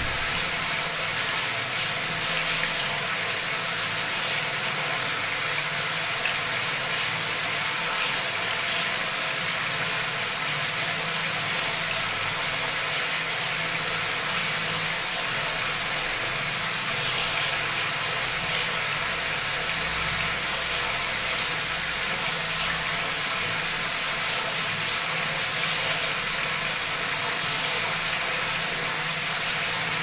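Bathroom tap running at full flow, a heavy stream pouring into a tub of water filled to the brim and splashing: a steady, unbroken rushing hiss.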